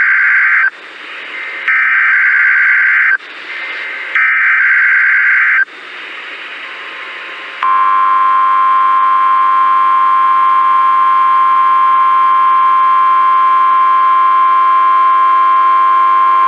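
Emergency Alert System test over broadcast radio. First come three harsh data bursts of the digital header, each about a second and a half long with short hissy gaps between them. After a brief pause, a steady, loud two-tone attention signal starts about seven and a half seconds in.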